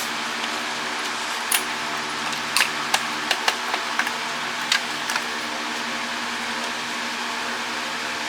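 Sharp clicks and taps of tools and plastic parts being handled while a wifi router is taken apart, about ten in quick succession starting about a second and a half in and stopping about five seconds in, over a steady background hum.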